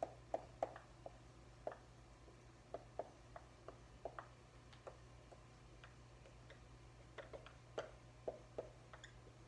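Dry-erase marker writing on a whiteboard: faint, irregular ticks of the tip striking and lifting off the board, a few a second, over a steady low hum.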